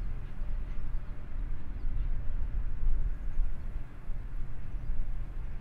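Grain hopper wagons of a wheat train rolling past at a distance: a steady, low rumble of wheels on rail.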